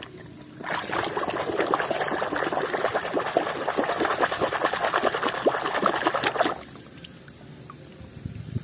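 A hand swishing and splashing vigorously in a basin of muddy water, washing a toy car. The splashing starts just under a second in and stops about six and a half seconds in, leaving faint water sounds.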